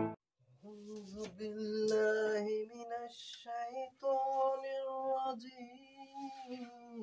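Faint singing: one voice holding a slow melody in long, drawn-out notes with short breaks between phrases.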